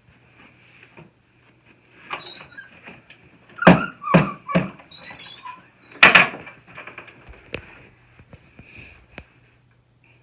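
A series of knocks and thumps: three quick, heavy ones about three and a half to four and a half seconds in, then a single louder one about six seconds in, with lighter clicks before and after. A faint steady low hum runs underneath.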